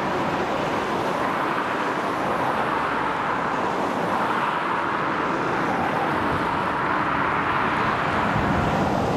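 Road traffic going by: cars and vans driving past close by, a steady run of tyre and engine noise with no sharp events.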